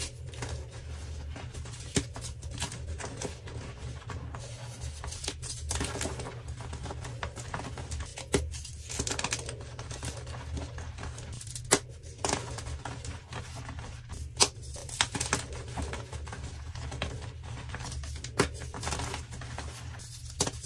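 Dyed gym chalk blocks crushed and crumbled by hand: dense dry crunching and crumbling, with a sharp snap every few seconds as a piece breaks, over a steady low hum.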